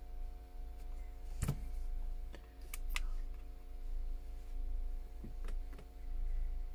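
Scattered small sharp clicks and taps of tools and small parts being handled during a phone repair, the loudest about a second and a half in, over a steady low electrical hum.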